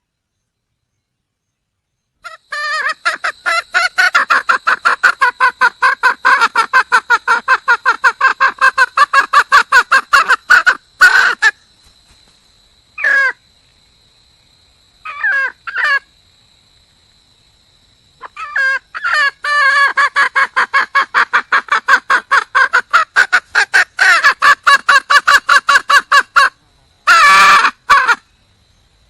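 Red junglefowl hen calling in long, fast runs of repeated clucking notes, about five or six a second. Two long runs are broken by a few short bursts. It is a hen's call to a cock.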